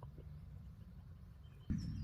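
Small birds chirping faintly in the forest over a steady low rumble, with a couple of soft clicks near the start; near the end a louder low rumble starts suddenly with a click.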